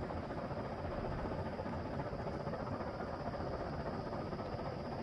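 Steady outdoor background noise: an even low rumble with a faint, steady high-pitched hiss above it. There are no distinct events.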